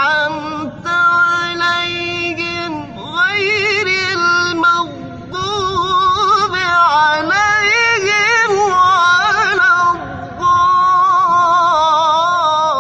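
A man's high voice in melodic Quran recitation (tilawah), holding long notes with rapid ornamental wavering, in phrases broken by short breath pauses about three seconds in, about five seconds in, and about ten seconds in.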